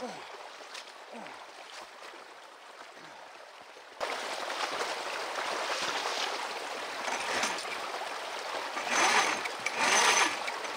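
Creek water running: quiet at first, then a louder steady rush from about four seconds in, with two brief louder bursts of noise near the end.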